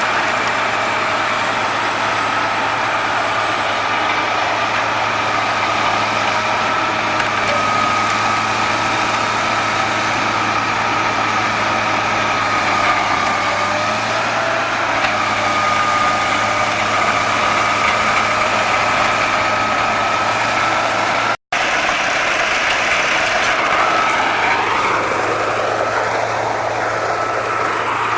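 Wood chipper running steadily, an engine drone with a steady high whine over it. There is a sudden break about two-thirds through, after which the whine's pitch glides down and up.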